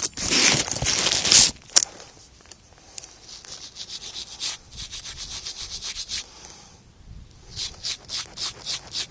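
Cloth rubbing over a camera microphone stuffed in a pocket. The first second and a half is loud scuffing, then runs of regular rubbing strokes, about three a second, as a freshly dug coin is rubbed clean.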